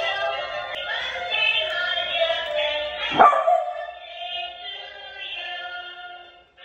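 A dancing cactus toy plays its electronic song, and a beagle gives one loud bark about three seconds in. The song carries on more quietly after the bark.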